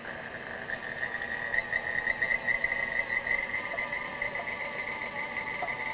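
Electric stand mixer running at a steady low speed, its motor giving a constant high whine while it mixes flour as the yeast liquid is poured in.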